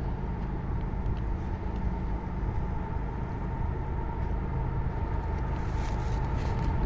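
Steady low rumble of a train's diesel locomotives approaching from far down the line, with a thin steady whine above it; it grows a little louder toward the end.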